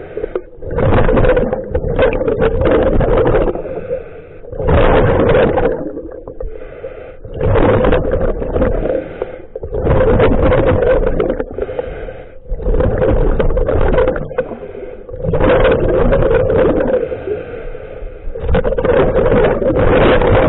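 Scuba diver breathing through a regulator underwater: loud bubbling exhalations every two to three seconds, with quieter hissing inhalations between them.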